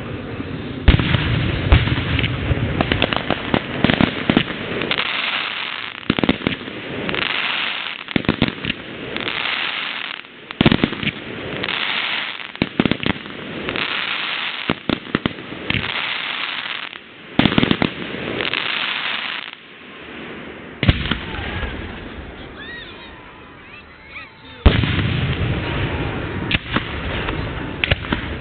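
Aerial fireworks display: a rapid series of sharp booms and pops from bursting shells, easing off about two-thirds of the way through before loud bursts start again near the end.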